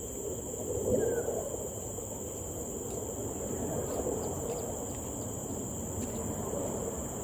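Tropical woodland ambience: a steady high-pitched drone of crickets or other insects over a low, even background rumble, with a few faint short bird chirps.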